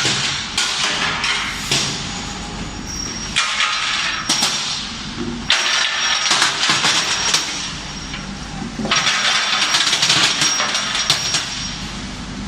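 Small metal parts, screws and bolts on a heat-treatment furnace line, clattering and clinking in repeated bursts of a couple of seconds each, about three seconds apart, over a steady low machine hum.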